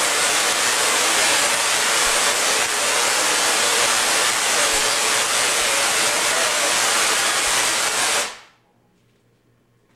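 Tesla coil discharging: sparks streaming off its toroid make a loud, steady crackling hiss that cuts off suddenly about eight seconds in.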